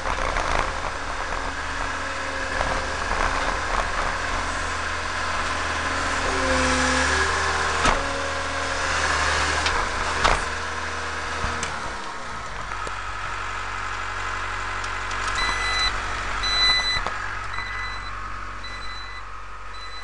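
Compact track loader's diesel engine running under work, its note dropping about twelve seconds in, then a backup alarm beeping at an even pace near the end.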